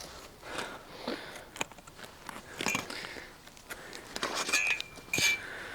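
Scattered light clicks, taps and rustles from roofing felt and a set square being handled and marked, with a couple of brief high squeaks a little before the end.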